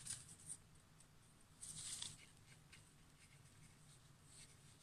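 Faint scratchy rubbing of a fingertip working paste into a stencilled, painted wooden board; the clearest rub comes about a second and a half in and lasts about half a second.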